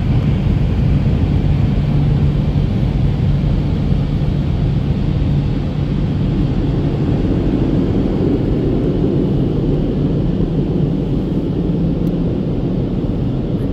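Automatic car wash machinery heard from inside the car: a steady, loud rumble of water and equipment with a low hum that fades near the end.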